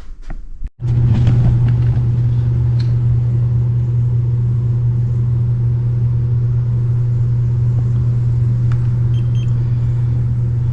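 Carrier heat pump system running in cooling mode, a loud steady low hum that comes in suddenly about a second in and holds even; it has just been started by a new thermostat after the old one failed to energise the reversing valve.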